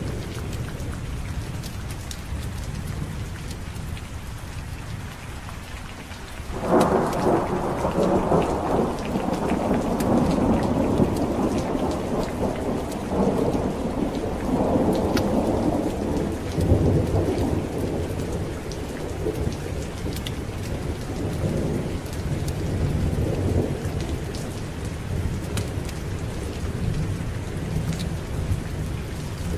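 Steady heavy rain. About six seconds in, a thunderclap breaks suddenly, then rolls on for ten seconds or more before fading into a low rumble under the rain.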